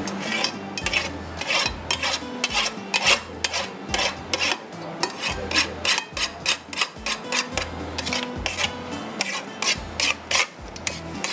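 Knife blade scraping and cutting set jelly against a round metal tray, an uneven run of short scraping strokes, about two or three a second.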